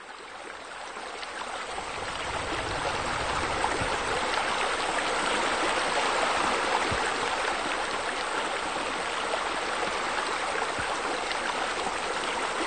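Steady splashing of running water, fading in over the first couple of seconds and then holding even.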